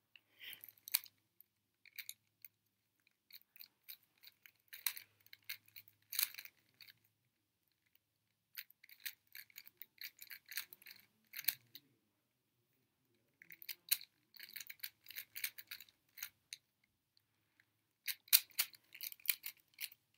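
Plastic 3x3 speed cube being turned fast by hand: quick runs of clicking, clacking layer turns separated by short pauses, with a dense flurry of turns near the end.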